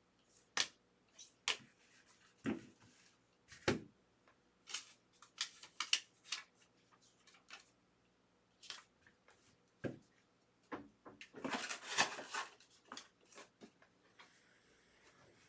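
Scattered clicks and taps of trading cards being handled and set down on a table, with a longer rustle about eleven seconds in.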